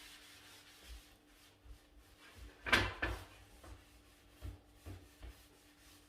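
Tissue paper wiping oil over a grill pan: one short, louder rubbing scrape about three seconds in, with scattered light knocks of the pan and paper being handled.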